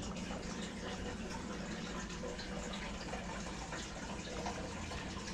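Steady, even rushing background noise with a faint low hum underneath, unchanging throughout.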